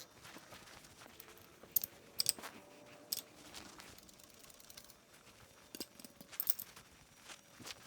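Scattered light clicks and metallic clinks, a few at a time with pauses between, as small tools or parts are handled.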